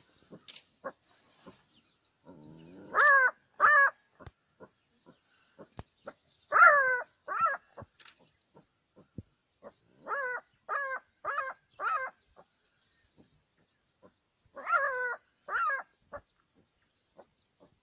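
Black-backed jackal giving short, high, yelping alarm calls at a caracal, in quick groups of two, two, four and two, each call rising and then falling in pitch. Faint scattered clicks and a faint high hiss lie underneath.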